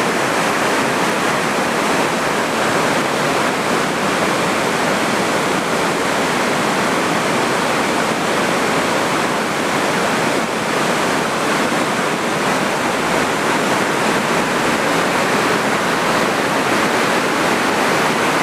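River water rushing steadily over and through a lock and dam, a loud, even roar with no breaks.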